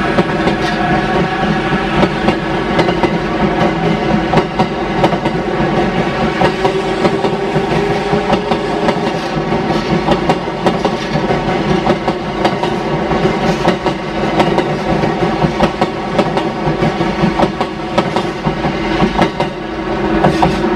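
JR East E353 series limited-express electric train passing close by: its wheels click rapidly over rail joints and points, over a steady hum from the train's running gear and motors.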